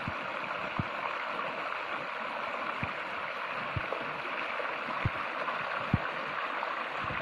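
Shallow rocky stream babbling steadily as the water runs over stones and a bamboo pole lying across it, with a few soft low thumps.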